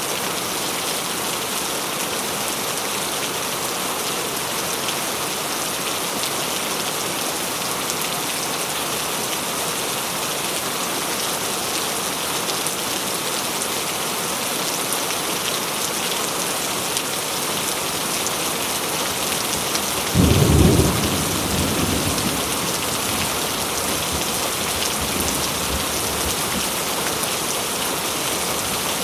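Steady rain falling, an even hiss throughout. About two-thirds of the way in, a sudden clap of thunder, the loudest sound here, rumbles away over the next few seconds.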